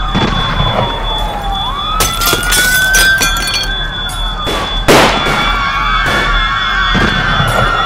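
Wailing sirens, their pitch rising and falling, overlaid with a run of clattering crashes and one loud bang about five seconds in.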